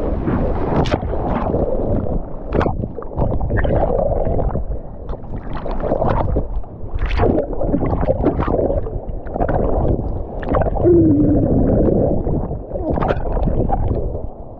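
Seawater sloshing and gurgling close around the microphone, muffled, with many short, sharp splashes.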